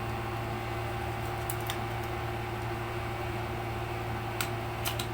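Steady low mechanical hum, with a few faint light clicks about a second and a half in and again near the end.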